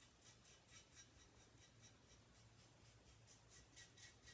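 Faint, quick, even strokes of a paintbrush loaded with acrylic paint brushing across a ceramic piece.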